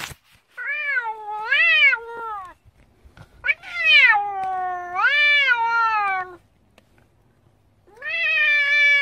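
Blue Scottish Fold cat giving three long, drawn-out meows that waver up and down in pitch, the last one still going at the end. They are complaining yowls of an annoyed cat protesting at its owner.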